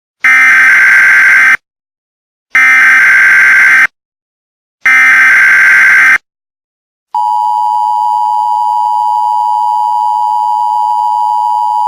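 Emergency Alert System signal. Three bursts of data tones, about a second and a half each with short gaps between, are the SAME header. From about seven seconds in comes the steady, unbroken EAS attention tone.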